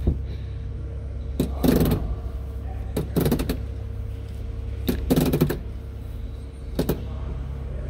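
Messerschmitt Bf 108's manual flap mechanism, a hand wheel driving chains to the rear, clattering in four short bursts about a second and a half apart as the flaps are wound back up. A steady low hum runs underneath.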